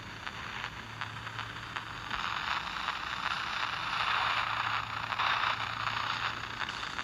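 Spirit box radio (Panabox) sweeping through stations: choppy static hiss full of rapid crackles, getting louder about two seconds in, with a faint steady low hum underneath.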